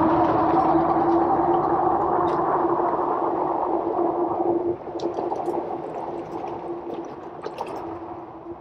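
Electric bike riding along: a steady motor whine over wind and rolling noise, dropping in level about five seconds in.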